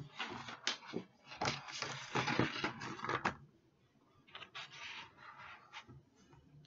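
Crinkling and scraping from objects handled close to the microphone: a dense run of rustles over the first three and a half seconds, then fainter scattered scratches.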